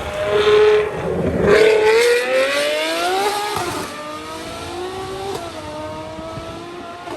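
Ferrari 812 Superfast's V12, breathing through a full Novitec Inconel exhaust, accelerating hard. Its pitch climbs, drops at an upshift about three and a half seconds in and again past five seconds, and the sound fades as the car pulls away.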